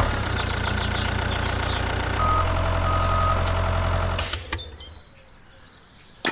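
Mini tractor's engine sound running steadily, shifting to a new pitch about two seconds in. Two short high beeps sound partway through, and the engine sound fades out after about four seconds.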